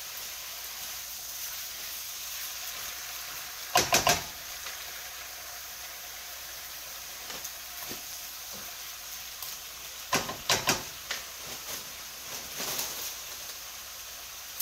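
Vegetables sizzling steadily in a white-lined frying pan. A stirring utensil knocks and scrapes against the pan in two short clusters, about four seconds in and about ten seconds in, with a few lighter taps between.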